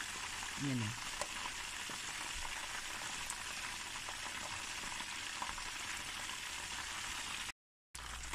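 Chicken drumsticks deep-frying in hot oil, a steady crackling sizzle, frying on their second side until golden brown. A brief low falling sound comes about a second in, and the sound cuts out for a moment near the end.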